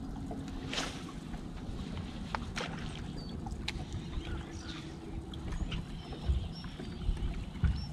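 Low rumble of wind and water around a drifting bass boat, with scattered light clicks and two duller low thumps near the end.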